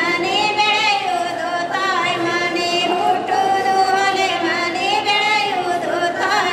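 Singing: a high voice holding long, wavering notes that slide between pitches, over a steady sustained tone underneath.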